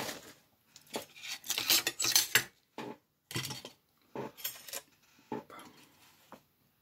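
Metal M1 carbine parts clinking and scraping as they are handled and set down, in a series of short clatters, the loudest about two seconds in.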